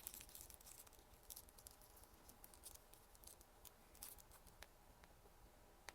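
Near silence with a few faint, scattered clicks and light rustles of small plastic diorama parts being handled.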